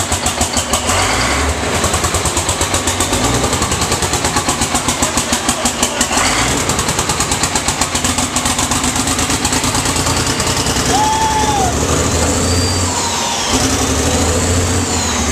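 Rebuilt Caterpillar C-12 inline-six diesel running, with a loud, fast, uneven pulsing beat that smooths out about ten seconds in. It is running rough after its rebuild. A few high whistles rise and fall over it near the end.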